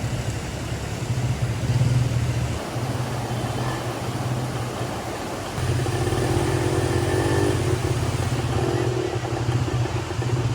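Steady low drone of a running vehicle, with faint muffled voices partway through.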